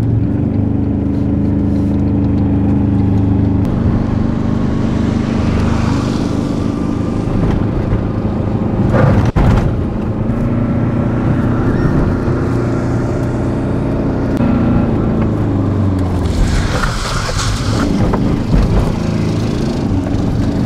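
Kubota Z482 two-cylinder diesel of an Aixam microcar, running with its power restriction removed: heard steadily under load from inside the cabin while driving, then, after a sudden cut about nine seconds in, from outside as the car drives across a paved yard, its pitch rising and falling.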